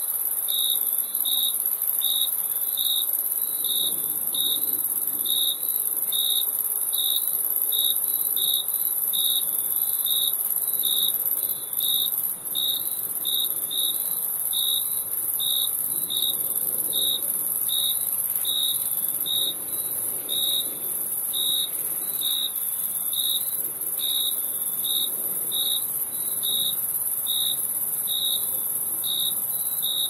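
Crickets chirping: one chirping in an even rhythm of about one and a half chirps a second, over a steady, unbroken high-pitched drone.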